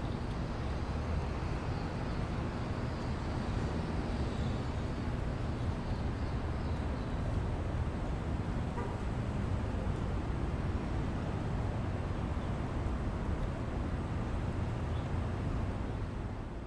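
Steady low rumble of outdoor urban ambience, fading out at the very end.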